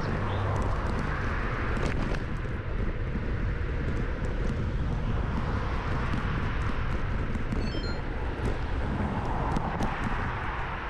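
Wind rumbling on the microphone and tyre and road noise from a bicycle being ridden along a town street, a steady noise with small rattles and clicks.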